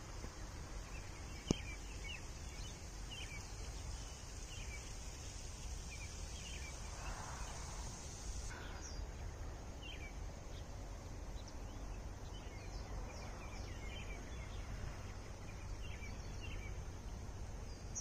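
Birds chirping in short, scattered calls over a steady high-pitched insect drone that drops in level about halfway through, with a low background rumble.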